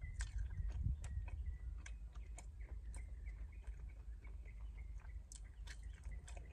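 Chewing of fried chicken with small wet mouth clicks, over a low wind rumble coming through the open car windows. A bird chirps repeatedly, about twice a second, fading after the first few seconds.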